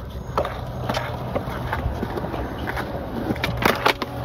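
Skateboard wheels rolling on concrete with a steady low rumble, broken by a few sharp clacks, then a quick cluster of loud clacks near the end as the board pops and its deck hits the concrete on a missed trick.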